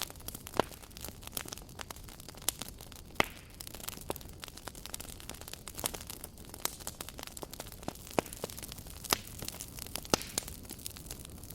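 Campfire crackling, with irregular sharp pops over a soft steady hiss.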